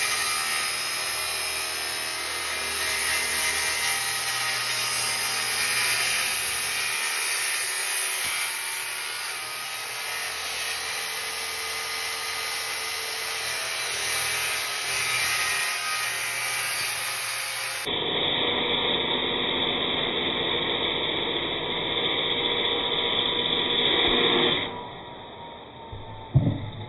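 Circular saw running steadily as it cuts through a glued-up pine panel. The saw stops near the end, followed by a couple of sharp knocks as the cut-off piece drops.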